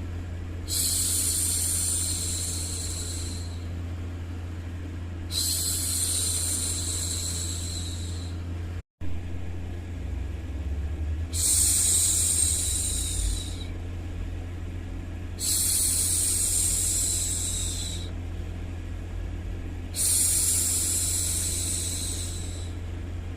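A woman shushing 'shhh' for a baby: five long, even shushes of about three seconds each, repeating every four to five seconds. Under them runs a steady low hum of background white noise, and the sound drops out for an instant about nine seconds in.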